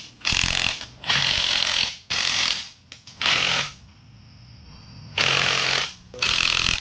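Handheld power tool run in six short bursts with pauses between them, as the transmission is bolted up to the engine.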